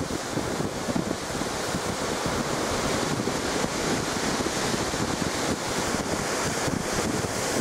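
Wind buffeting the microphone in irregular low gusts over the steady wash of Lake Michigan surf breaking on the shore.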